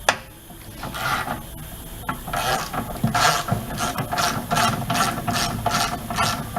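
Hand ratchet with a socket on an extension, clicking in quick back-and-forth strokes, about two and a half a second from about two seconds in, while turning a run-flat lock bolt. A single sharp click comes at the very start.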